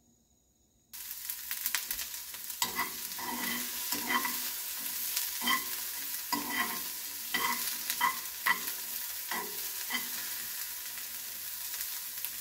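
Broccoli and onion sizzling in cooking spray in a nonstick frying pan while being stirred, a utensil scraping across the pan about once a second. The sizzle comes in suddenly about a second in, after near silence.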